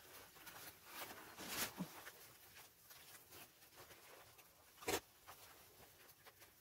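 Faint rustling of clothing and light handling noises as a person gets up and moves about, with one sharp knock about five seconds in.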